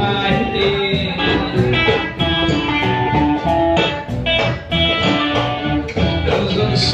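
Blues song in an instrumental stretch between sung lines, with guitar to the fore over a steady beat.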